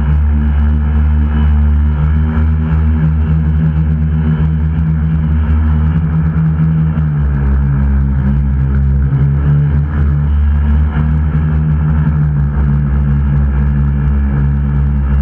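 Electric motors and propellers of a DIY tricopter, heard from the onboard camera, droning steadily in flight. The pitch shifts as the throttle changes about seven seconds in.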